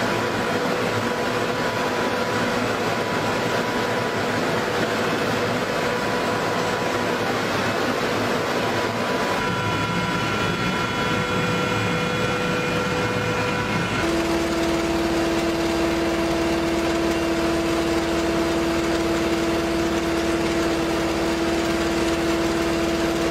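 Steady mechanical drone of machinery running, with several held whining tones over it. The sound changes abruptly about nine and fourteen seconds in, and a strong steady hum runs on after the second change.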